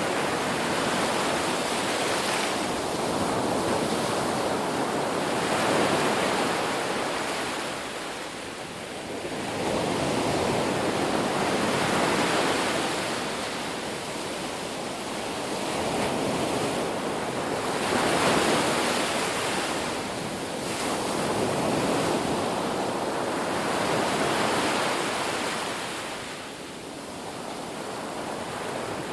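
Ocean surf: waves breaking and washing in one after another, the rush swelling and fading about every six seconds.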